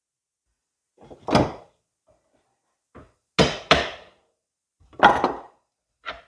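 Several separate knocks and thunks as hydraulic cylinder parts are knocked about and handled during teardown. There are about five, two of them close together about three and a half seconds in.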